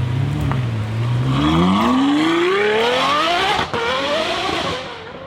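A car engine revving hard, its pitch climbing steadily, dropping with a click as if shifting gear, then climbing again before fading away.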